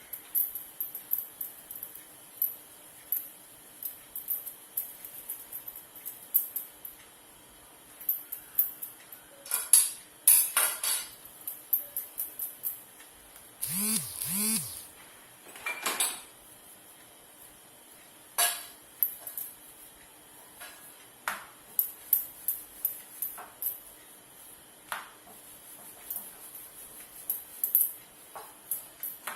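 Kitchen utensils clicking, tapping and clinking on and off while dough is worked, with a few louder knocks around the middle. A faint steady hum runs underneath.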